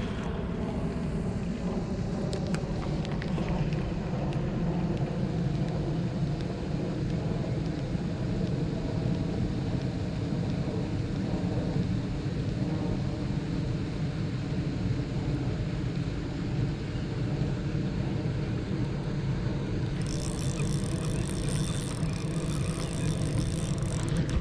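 Dirt bike engine running at a steady speed, with a higher hiss coming in near the end.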